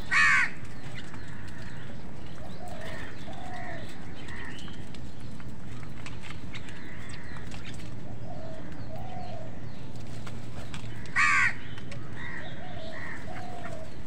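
House crows calling: two loud, harsh caws, one at the start and one about 11 seconds in, with softer short bird calls in pairs repeating in between.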